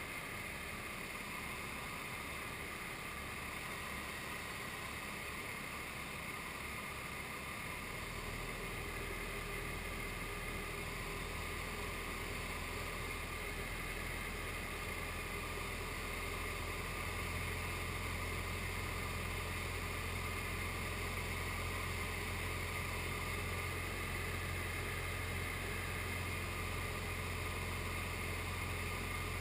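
SD-1 Minisport light aircraft's engine and propeller droning steadily, with a deep low hum coming in about eight seconds in and strengthening a little past halfway.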